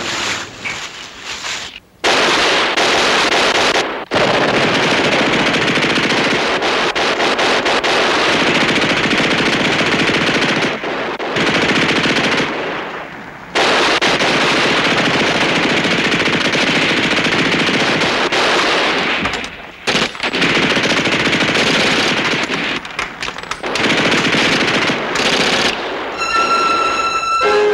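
Machine-gun fire in long, sustained bursts, broken by a few short pauses, the longest about two seconds near the middle.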